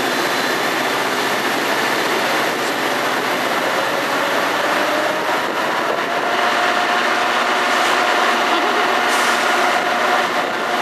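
Steady, loud running noise of a train, with a faint tone that rises slightly about halfway through.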